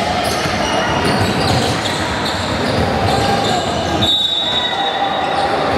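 Basketball bouncing during game play, over a steady din of voices and court noise. A short, high-pitched steady tone sounds about four seconds in.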